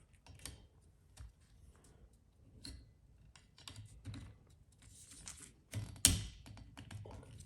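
Light plastic clicks and rattles of a Rain-X silicone wiper blade's adapter being worked onto a J-hook wiper arm, with a louder clack about six seconds in.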